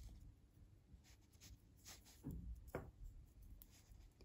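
Faint scratching and light ticking of knitting needles and yarn as knit stitches are worked, with a couple of slightly louder swishes about two to three seconds in.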